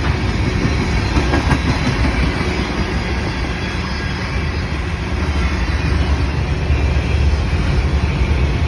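CN mixed freight train rolling past: a steady rumble of wheels on the rails, loudest in the low end.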